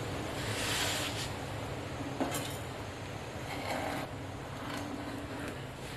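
Chapatis being slid and shuffled by hand on a cast-iron tawa: a few brief dry scraping rustles and one sharp click about two seconds in, over a steady low rush.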